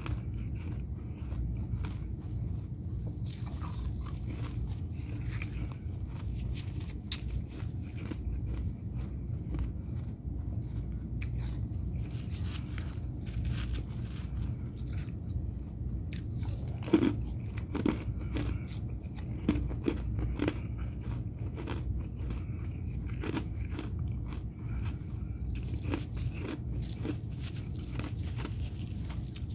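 Fresh freezer frost being crunched: irregular crisp crackles and crunches, thickest and loudest a little past halfway, over a steady low hum.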